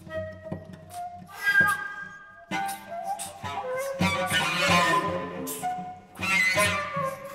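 Contemporary chamber music: flute notes over a bowed cello, starting sparse with a few short clicks and growing denser and louder about four seconds in.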